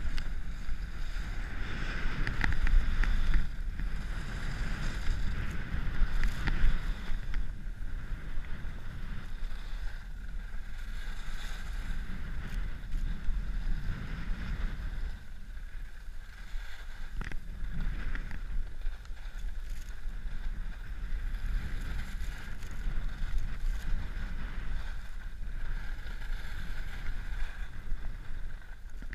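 Salomon Q90 all-mountain skis sliding and carving down firm, groomed snow: a continuous scraping hiss that swells and eases, over a low rush of wind on the microphone.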